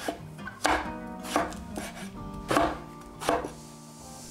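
Chinese cleaver cutting Chinese eggplant on a wooden cutting board: about five unhurried cuts, each a sharp knock of the blade meeting the board, roughly one every three quarters of a second.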